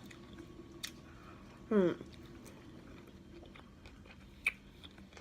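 Close-miked mouth sounds of someone chewing a sub sandwich, with a few sharp wet clicks. About two seconds in there is a short hum that falls in pitch.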